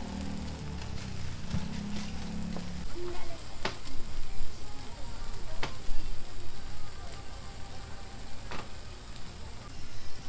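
Egg mixture and bacon strips sizzling steadily on a flat-top griddle, with about three sharp clicks along the way.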